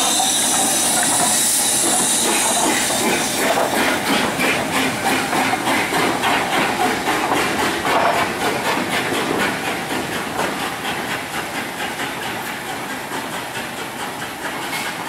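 A steam train passing: steam hissing at first, then a fast, even clatter that slowly fades as the train moves away.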